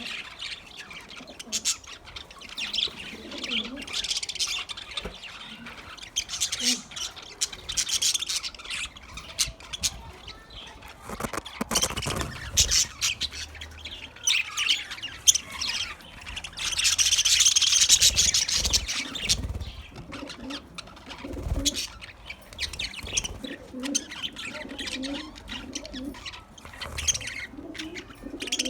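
Budgerigars chirping and chattering continuously, with a louder, denser burst of chatter about two-thirds of the way through. A few low thumps sound in between.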